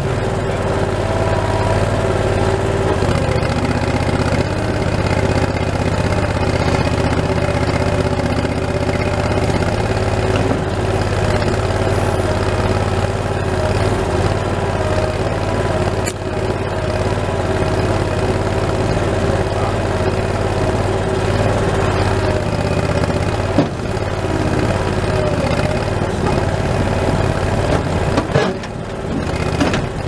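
Skid steer loader's engine running steadily, heard from inside the operator's cab while the machine works its grapple bucket.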